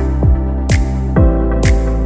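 Electronic background music with a steady beat: a kick drum about twice a second, a sharp hit on every other beat, over sustained chords.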